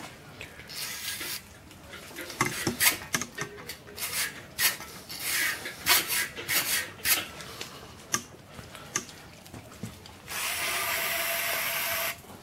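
A brush scrubbing inside the oil galleries of a cast-iron Ford 351 Cleveland V8 block in a run of irregular rasping strokes, then an aerosol can of brake cleaner sprayed into a gallery in one steady hiss of about two seconds near the end.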